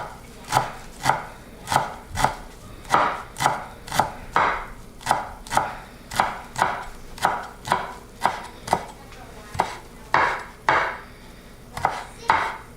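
A knife chopping steadily on a cutting board, about two strikes a second.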